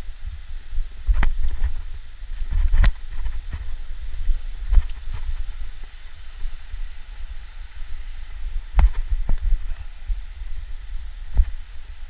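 Wind buffeting the microphone as a low, uneven rumble over a steady rushing hiss, with several sharp knocks at irregular intervals, the loudest about three seconds in.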